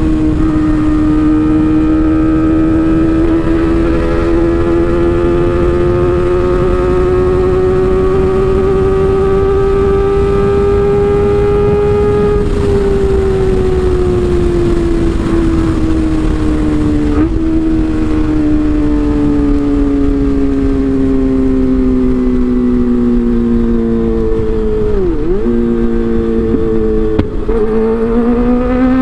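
Kawasaki ZX-25R's 250 cc inline-four running through an Arrow aftermarket exhaust, held under steady load. Its pitch climbs slowly for about twelve seconds, then falls gradually, with a few brief dips near the end.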